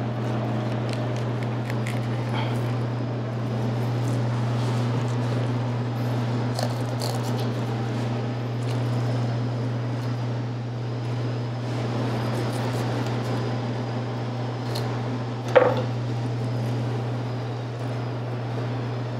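Soft wet cutting and scraping of a flexible boning knife drawn along the bones of a salmon as it is filleted, over a steady low hum. One brief louder sound comes about three-quarters of the way through.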